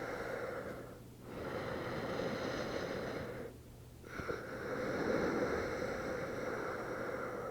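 Slow, audible breathing close to the microphone during a held yoga pose. The breaths are long and drawn out, with brief pauses about a second in and again around the middle.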